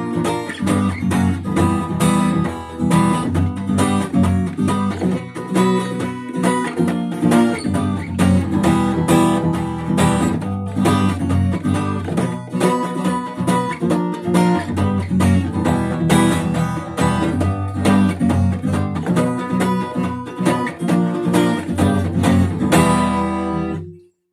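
Instrumental outro of a song led by a strummed acoustic guitar, keeping a steady rhythm of chords; it fades and stops just before the end.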